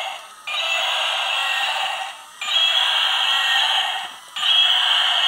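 Robot dinosaur toy playing electronic roar sound effects through its small built-in speaker: a thin, bass-less roar repeated in roughly two-second runs with short breaks between them.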